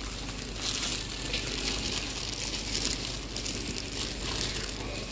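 Plastic bag crinkling as flour is shaken out of it into a steel mixing bowl, over a steady background hiss.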